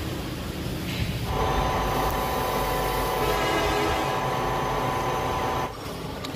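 Metal lathe turning a steel drill-press spindle sleeve, the tool cutting with a steady whine over a low hum. The whine begins about a second in and breaks off abruptly near the end.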